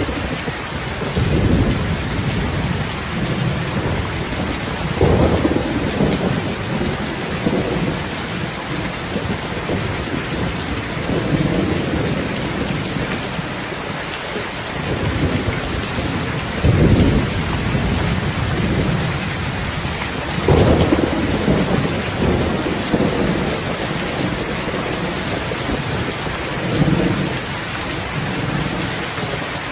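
Steady heavy rain hissing, with rolls of thunder rumbling low about six times, the strongest ones just past the middle.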